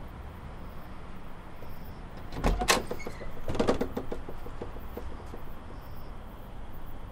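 Door sounds against a quiet background: a sharp thump about two and a half seconds in, then a short rattling clatter of clicks about a second later.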